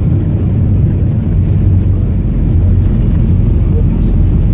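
Cabin noise inside an Airbus A321 moving on the ground after landing: a steady, loud low rumble from the engines and the rolling airframe.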